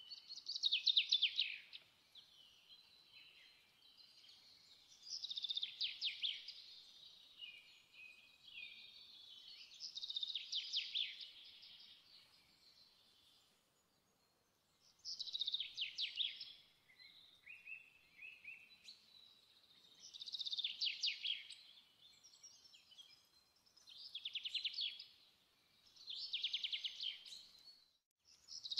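A small bird singing a short, high trilled phrase that slides downward, repeated about every five seconds.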